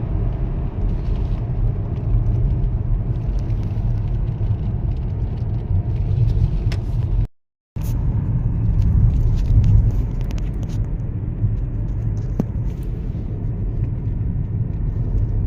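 Steady road and engine rumble heard from inside a moving car's cabin on a snowy, icy road. The sound cuts out to silence for a split second a little past halfway, then resumes.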